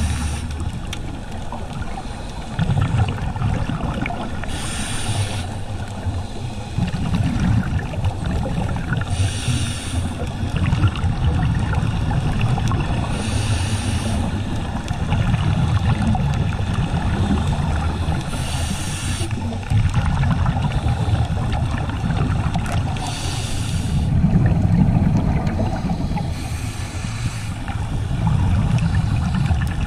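Underwater sound of scuba breathing: six bursts of exhaled regulator bubbles, about every four to five seconds, over a steady low underwater rumble.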